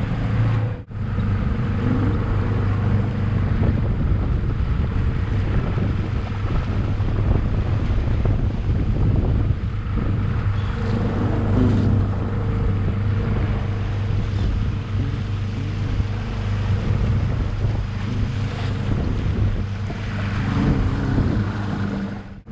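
Evinrude 115 outboard motor running steadily as the boat trolls, with wind and water hiss over it.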